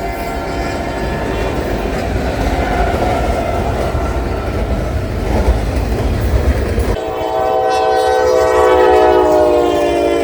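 Locomotive air horn chord sounding as a freight train rolls by, wheels clattering on the rails; the horn fades in the first few seconds, leaving the rumble of the train. About seven seconds in the sound switches abruptly to a loud, steady horn blast that holds to the end.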